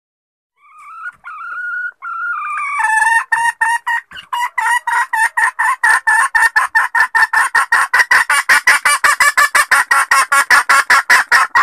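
Junglefowl hen lure call: a few drawn-out, wavering notes, then a long, fast run of short clucks at about five a second that cuts off suddenly near the end.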